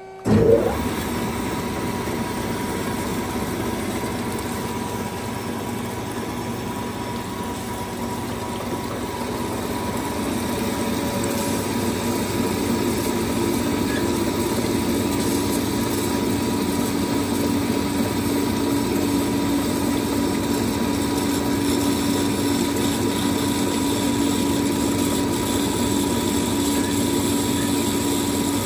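A 2007 Amada HA-250W automatic horizontal band saw with a 5 HP motor starts up about half a second in and runs steadily, a mechanical hum with a steady whine. The running grows somewhat louder and lower-toned from about ten seconds in.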